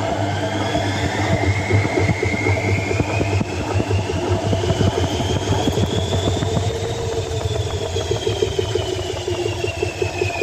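Samsung washing machine running, heard from inside the drum: a motor whine rises in pitch and then falls as the drum speeds up and slows, over a steady low hum and rapid irregular knocking of the tumbling load.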